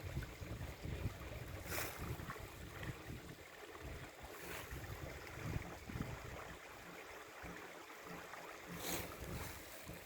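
Mountain stream babbling and trickling over rocks, a steady watery hiss, with wind rumbling on the microphone. A few brief louder rustles come about two, four and nine seconds in.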